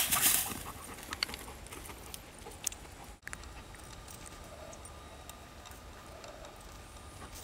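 Hunting dog running out across dry grass to retrieve a downed dove, with faint rustling and patter from its paws. A brief loud rustle at the very start.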